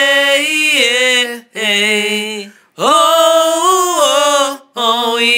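A voice singing or chanting long held notes in short phrases. The notes break off briefly about a second and a half in, again near the middle, and again near the end.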